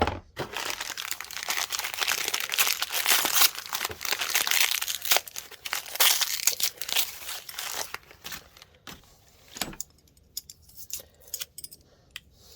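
Packaging being crinkled and torn open for about eight seconds, dense and crackly, then a few scattered light rustles and clicks.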